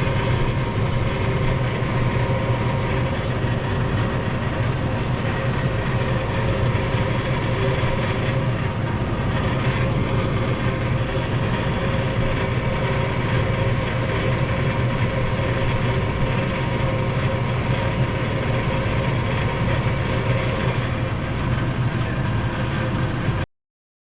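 Gas furnace running steadily with its newly replaced draft inducer motor and blower fan, a steady hum with even air noise. It shows the furnace working normally. The sound cuts off suddenly near the end.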